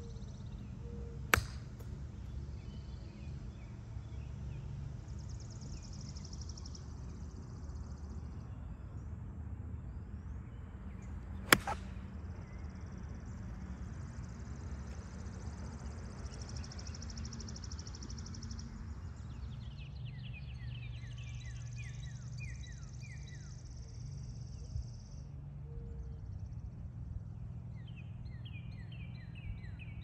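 Two sharp clicks of a golf club striking the ball about ten seconds apart, the second the louder. Behind them birds keep singing: a repeated high trill throughout, and quick falling chirps in the last third, over a low steady rumble.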